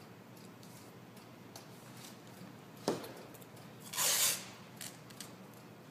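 White athletic tape being pulled off its roll: a short, loud ripping sound about four seconds in, preceded a second earlier by one sharp click, with faint handling ticks around it.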